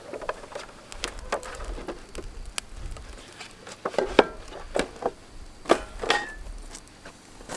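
Irregular knocks, clicks and scrapes of tools and wood being handled at an open fire, the loudest knocks about four and six seconds in.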